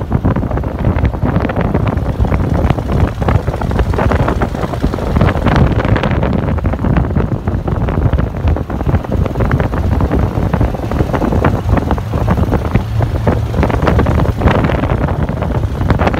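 Heavy wind buffeting the microphone while riding an open motor trike, with the trike's engine and road noise running underneath.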